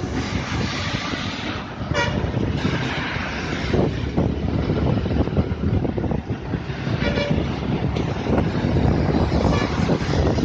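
Traffic noise from inside a moving vehicle on a wet road, with rumbling wind on the microphone. Short vehicle horn toots sound about two seconds in, again around seven seconds in, and faintly near the end.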